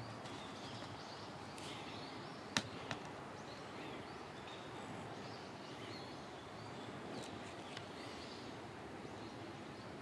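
Steady background noise with faint, scattered chirps of small birds, broken by two sharp clicks about a third of a second apart, roughly two and a half seconds in.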